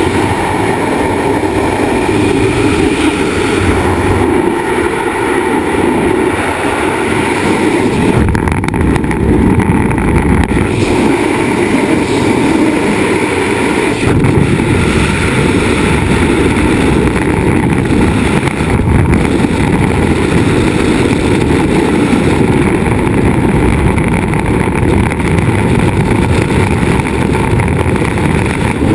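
Freefall wind rushing over a helmet-mounted GoPro's microphone: a loud, steady buffeting of air.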